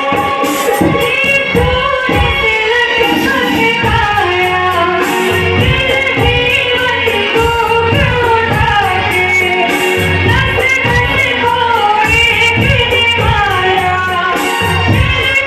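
A girl singing a Hindi patriotic song over Bollywood-style backing music with a steady beat.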